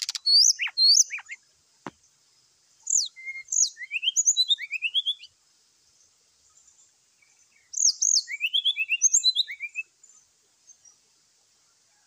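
Brown-chested jungle flycatcher giving its aggressive fighting song: three bursts of rapid, high whistled notes that slide up and down. There are a couple of sharp taps in the first two seconds.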